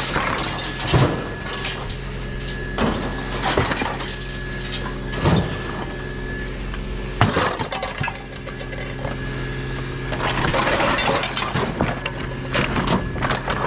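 Scrap items knocking and clinking as they are handled, with separate sharp knocks every second or two and a longer stretch of clattering near the end, over a steady low hum.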